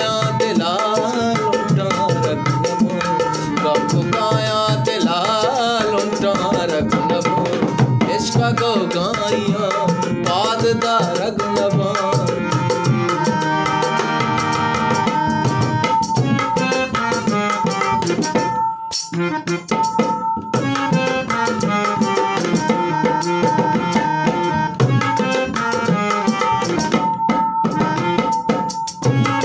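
Instrumental passage of a Balochi song: tabla playing a steady rhythm under a melodic instrument line, with a short break about nineteen seconds in.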